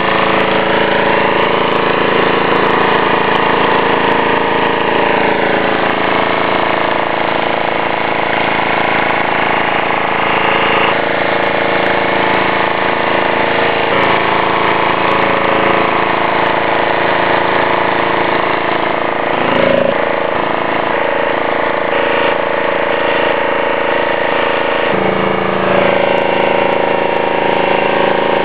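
Motorboat engine running steadily and loudly, its pitch shifting slightly a few times.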